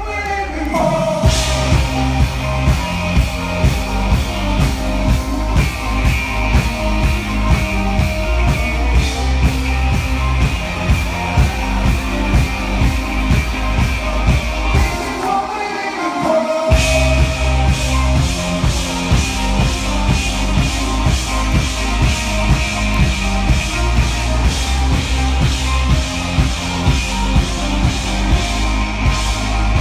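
Live rock band playing: bass guitar, keyboards and drum kit under a lead vocal, with a steady kick-drum beat about twice a second. Around halfway the bass and drums drop out for a moment, then come back in.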